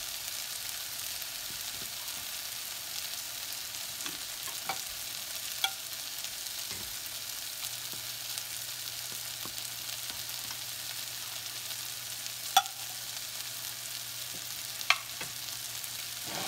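Water at a rolling boil in an enamelled pot, a steady bubbling hiss, with a metal slotted spoon scraping and clinking against the pot as pieces are lifted out. Three sharp clinks, the loudest two near the end.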